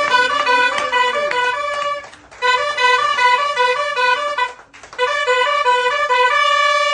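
A small hand-held horn blown as a musical instrument, playing a quick tune of short notes in three phrases, with brief pauses between them and a long held note near the end.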